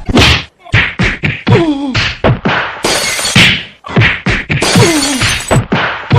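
A rapid string of cartoon whack and smash sound effects, some of the hits followed by short tones falling in pitch.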